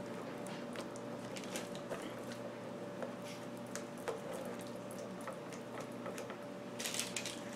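Silicone spatula scraping and pushing a thick, creamy spinach and chicken filling around a skillet to split it in two: soft, squishy scrapes and small clicks against the pan, over a faint steady hum.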